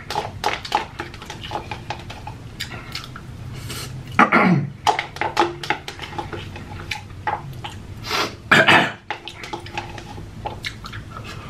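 Close-miked eating of ghost pepper instant noodles: chewing and slurping, with many small clicks and taps of wooden chopsticks against a paper noodle cup. Two louder sounds stand out, about four and eight seconds in.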